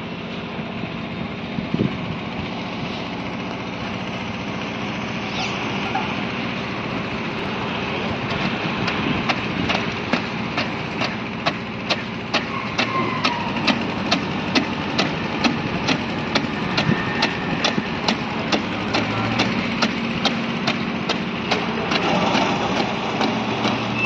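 Engine of a concrete mixer with bucket hoist running steadily during a roof slab pour, with sharp regular clicks about twice a second setting in about a third of the way through.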